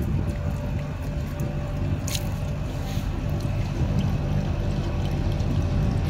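Water running and trickling out of an air conditioner's drain pipe as the blocked line is flushed through, carrying dirt with it. Under it runs a steady low mechanical hum, like a motor running, which is the loudest thing heard.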